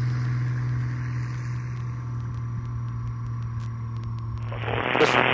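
Bearhawk light aircraft's piston engine and propeller at takeoff power: a steady low drone that slowly drops in level. Near the end a brief rush of noise cuts in and then stops suddenly.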